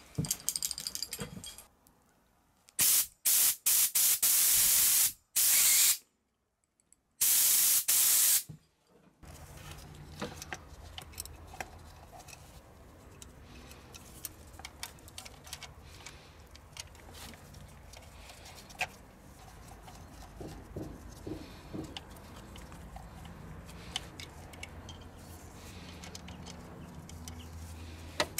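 Several short, loud hissing blasts of brake cleaner spray and compressed air forced through old diesel high-pressure fuel pipes to flush them out, in the first nine seconds. After that, only faint clicks and small knocks of hands working on the injector pipes and connectors.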